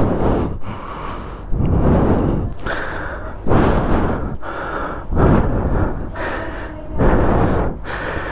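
A person breathing hard right at the microphone: about five heavy, noisy breaths at a steady pace, each a second or so long, the panting of someone out of breath from exertion.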